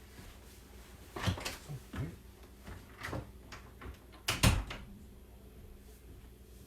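A few scattered knocks and thumps, like a door or cupboard being handled. The loudest comes as a double knock about four and a half seconds in.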